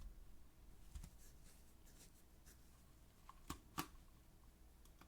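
Near silence: room tone with a few faint clicks of a computer keyboard, about a second in and twice in quick succession past the middle.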